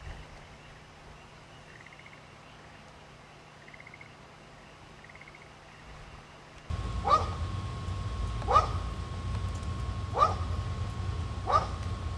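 A dog barking, short barks that fall in pitch, about one every second and a half. The barks sit over the low steady hum of a train standing at a station and a thin steady high whine. All of this starts suddenly about two-thirds in, after a faint quiet stretch.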